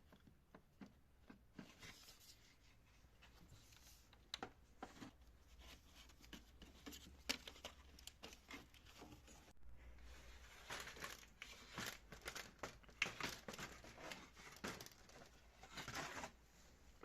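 Faint scattered clicks, taps and crinkling rustles of hand work on parts and tools, growing busier about halfway through.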